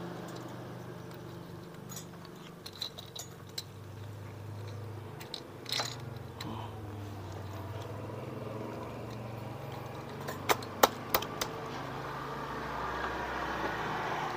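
Small metal engine parts and hand tools clicking and clinking during hand assembly of a Yamaha Crypton motorcycle engine's cylinder head. There are scattered light clicks early on, then a quick run of four sharp, loud clicks about ten to eleven seconds in, over a steady low hum.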